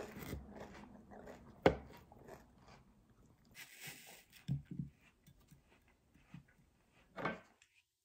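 A metal fork clinks and scrapes against a small glass bowl and a wooden plate while cutting into apple slices. A sharp clink about two seconds in is the loudest sound, and a few lighter knocks follow.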